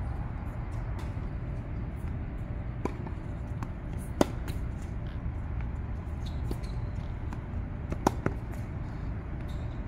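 Tennis balls struck by a racket: sharp pops, the loudest about four seconds in and another about eight seconds in, with fainter clicks between them. A steady low rumble runs underneath.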